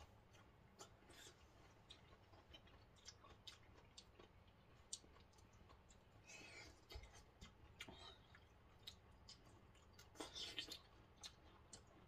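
Near-quiet eating: scattered faint clicks of forks against glass plates and soft chewing of mango and orange pieces, a little louder twice, around six and ten seconds in.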